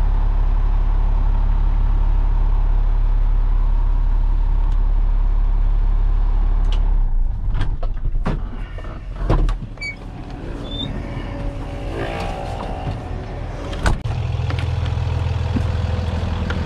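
Heavy diesel truck engine idling with a steady low rumble, heard from the cab. About seven seconds in the rumble drops away and a run of door-latch clicks and knocks follows as the cab door opens and the driver climbs down. A single door slam about fourteen seconds in, then a diesel engine idling again from outside.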